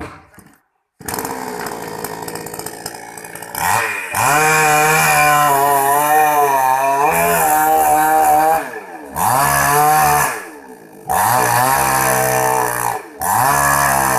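Petrol chainsaw running: it runs at a lower speed from about a second in, then is revved hard in four stretches, the longest about four seconds, dropping back between them, with the pitch wavering under load.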